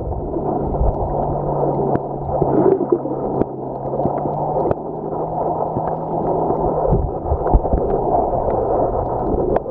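Muffled underwater water noise heard with the microphone submerged, with scattered small clicks and knocks and a steady low hum through most of it.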